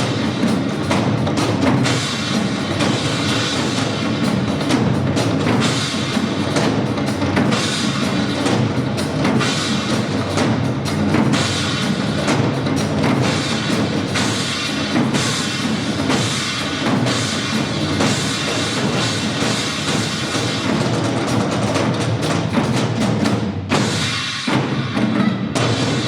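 Nanta ensemble drumming: many Korean drums beaten with sticks in a dense, continuous pounding rhythm, with a short dip just before the end before the beating picks up again.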